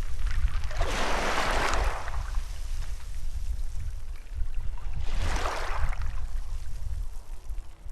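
Sea waves washing in, two rushes of surf about four seconds apart, over a steady low rumble.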